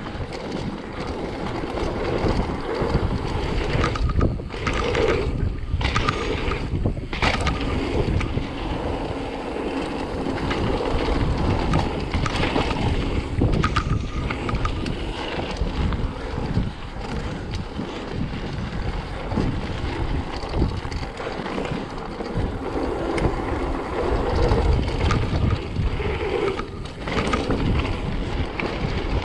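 Wind buffeting the microphone over an uneven rumble and rattle from a mountain bike riding down a trail.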